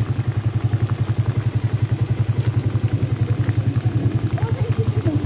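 Motorcycle engine running at low revs with a steady, rapid exhaust pulse as the bike rolls slowly.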